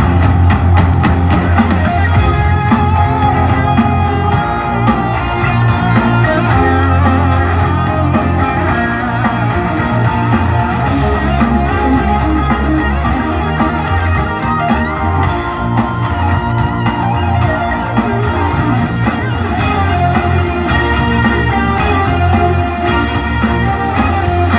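Live band playing through a PA: guitar over a strong bass line and drums.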